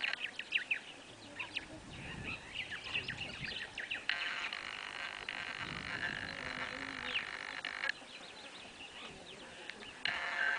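A chorus of frogs calling, a dense pulsing trill that breaks off and starts up again twice, with short chirping calls in the first few seconds.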